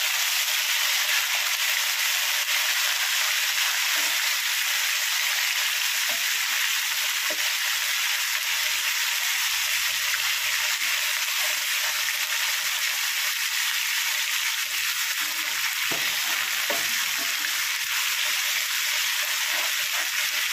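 Ginger-garlic paste frying in hot oil with whole spices: a steady sizzle, stirred with a wooden spatula that knocks faintly against the pan now and then. The paste goes in cold from the fridge, so the oil spatters hard.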